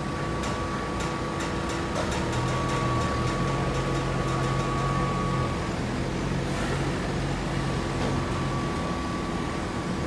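Steady mechanical hum of a hydraulic fiber baling plant at work, with a run of light clicks and rattles over the first three seconds.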